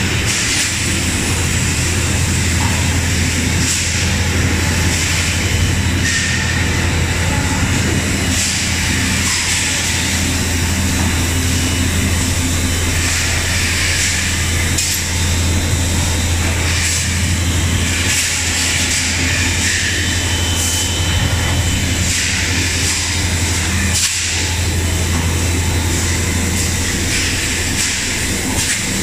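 Plastic-bottle production line running: blow-moulding machines and bottle conveyors give a loud, steady low hum with hiss. Short hissing bursts come every second or two, typical of blow-moulding machines venting compressed air.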